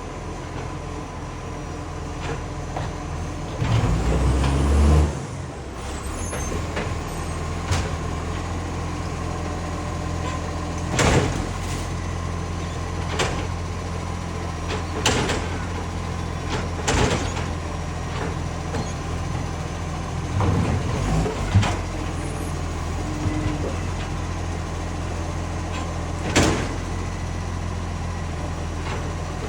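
Garbage truck's diesel engine running steadily with a leaking exhaust, briefly louder about four seconds in. A sharp knock comes every few seconds.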